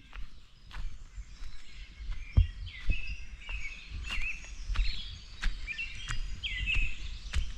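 Wild songbirds singing in short, repeated phrases, with footsteps on the forest floor about every two-thirds of a second.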